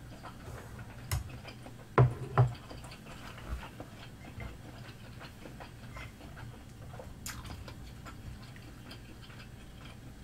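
Quiet eating sounds close to the microphone: fish cake being chewed, with a few sharp clicks, the loudest two about two seconds in.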